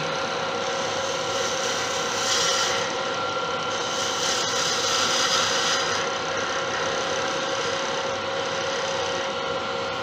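Laguna 1836 wood lathe running with a steady hum while a turning tool, held at about 45 degrees, cuts the spinning deer-antler pen blank. The cut adds a brighter hiss about two seconds in and again from about four and a half to six seconds.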